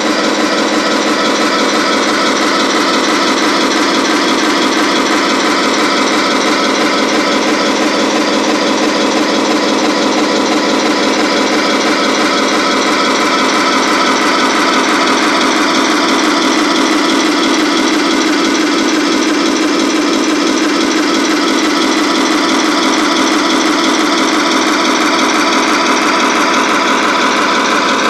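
Simulated tank engine idling, played from the onboard sound unit of a Tamiya 1:16 Tiger I RC tank through its small speaker: a steady, even rumble with a fast regular pulse and hardly any deep bass.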